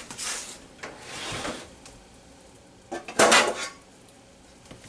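A spoon stirring seasonings into a big pot of water, scraping and knocking against the pot, with a louder clatter a little past three seconds in.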